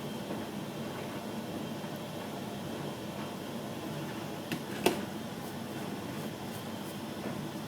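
Candy Grando tumble dryer running steadily. Two sharp clicks come close together about halfway through.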